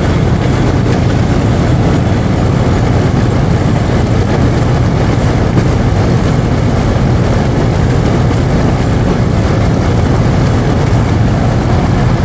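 Outdoor air-conditioning condenser unit running: a steady, loud, low hum of the condenser fan and compressor.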